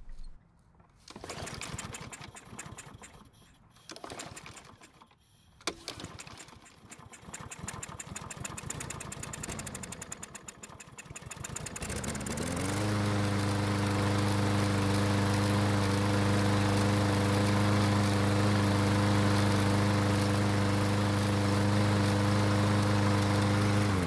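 Troy-Bilt push mower's small single-cylinder engine starting after being primed with fuel: it fires and sputters unevenly for about twelve seconds, takes off slowly, then settles into steady running on its own. The slow, stumbling start is put down to stale gasoline over a year old in the tank.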